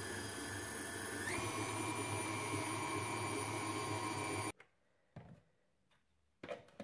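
KitchenAid Artisan stand mixer running as it mixes biscuit dough, its motor whine stepping up in pitch about a second in as the speed is raised. The motor cuts off suddenly about four and a half seconds in, followed by a couple of faint knocks.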